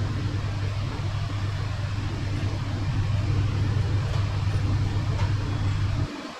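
A steady low mechanical hum of a running machine, cutting off suddenly about six seconds in.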